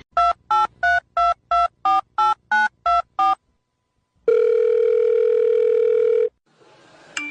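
Telephone keypad dialing tones: ten short beeps at about three a second, each a different two-note pitch. After a brief pause comes one steady tone about two seconds long, like a call ringing on the line.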